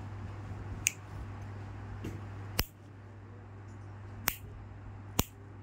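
Nail nipper snipping at an ingrown big toenail: four sharp clicks about a second or so apart, with a fainter click between the first two, over a steady low hum.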